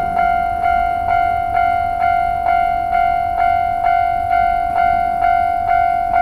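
Japanese railway level-crossing warning bell ringing: a clear, pitched electronic ding repeating steadily about twice a second, each strike fading before the next. It is the signal that a train is approaching and the crossing is closing.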